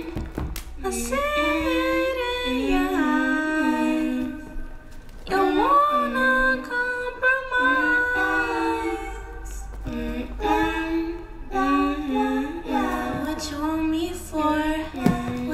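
A woman singing a slow, sustained melody over a music track, her long held notes sliding from one pitch to the next.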